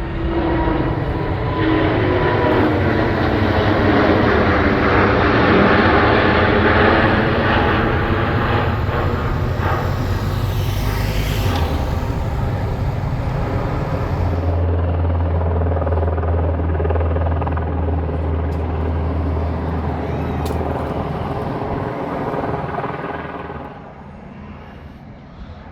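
Aircraft engines as a display aircraft passes overhead. The sound builds sharply about a second in and is loudest a few seconds later, with its pitch falling as it goes by. It then fades slowly and drops off near the end.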